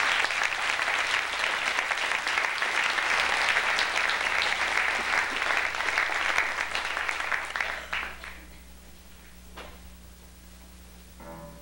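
Audience applause, dense clapping that dies away about eight seconds in.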